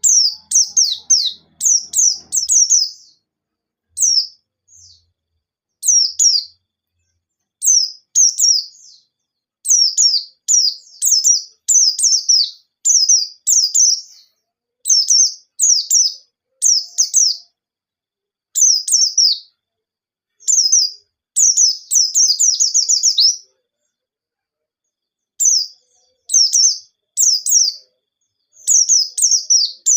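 White-eye (pleci) singing: fast runs of high, short, downward-slurred chirps, broken by brief pauses between runs.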